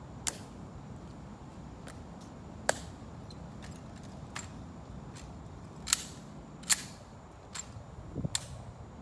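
Sharp, isolated clicks from the honor guards' drill movements, five loud ones irregularly spaced a second or more apart, with fainter clicks between.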